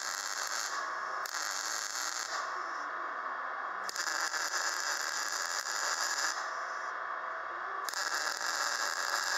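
MIG welder arc crackling steadily as it plug-welds a steel repair plate through drilled holes.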